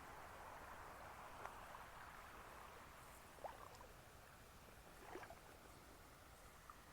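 Near silence: a faint steady hiss with a few soft clicks or drips scattered through it.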